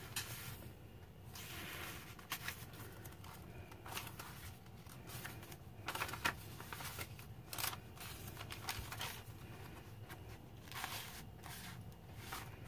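Paper rustling as the pages of a handmade paper notebook are turned and a paper tag is handled: short, irregular soft rustles and taps over a low steady hum.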